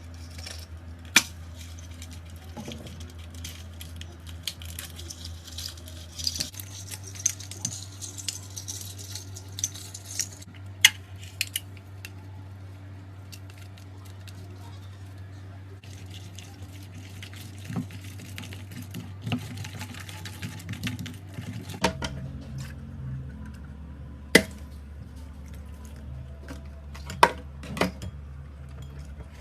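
Slime from slime-filled balloons being handled: wet, sticky squelching and dripping over a steady low hum, with a few sharp snaps.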